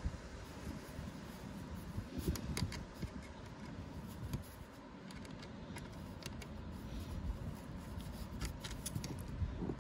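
Hands fitting tubing and hose clamps: scattered small clicks and taps, over a low rumble of wind on the microphone.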